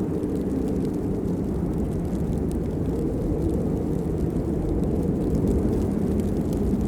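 Steady rain: an even, low-pitched wash of falling rain with faint scattered drop ticks over it.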